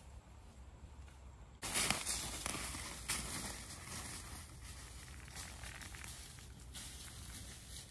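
Footsteps of two people crunching through dry leaf litter and twigs on a forest floor. They are faint at first and get suddenly louder about a second and a half in, with irregular crackling steps.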